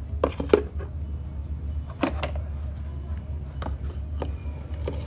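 A few scattered light taps and clicks of small plastic toy cookware being handled: a toy pot knocking against a plastic colander while pasta is tipped into it, over a steady low hum.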